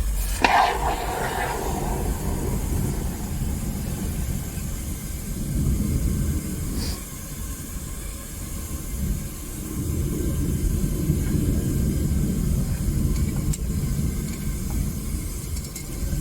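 Home-made propane furnace burner running with a steady low rumble and hiss. A single metallic clank with a brief ring about half a second in.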